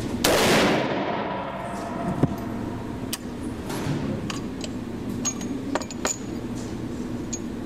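A single gunshot from an H&R single-shot shotgun firing through an X Caliber adapter insert, with a ring-out of about a second. It is followed by a sharp metallic clink and several light metallic clicks, typical of the break-open action being worked and the spent case handled.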